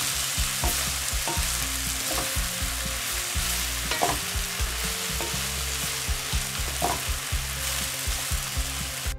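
Green beans coated in ground lentil powder sizzling in oil in a kadai and being stirred with a wooden spatula, which scrapes and knocks against the pan a few times. The steady sizzle is the dal powder frying in the oil.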